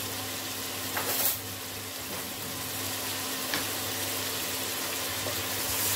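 Baby octopus and onions sizzling as they fry in a stainless steel pot, a steady hiss over a low hum. A brief knock comes about a second in.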